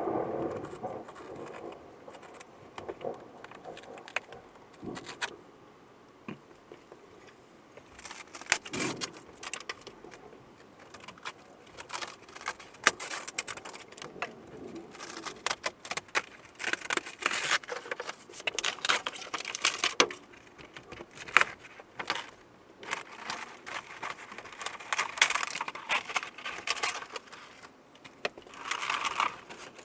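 Thin ceiling paneling and insulation being pulled and torn down inside the motorhome: irregular crackling, snapping and scraping, sparse at first and busy from about eight seconds in.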